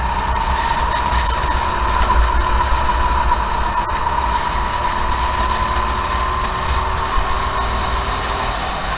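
Go-kart engine running steadily under racing load, heard from onboard the kart over a constant low rumble. Its pitch rises a little in the first few seconds, then eases off slightly.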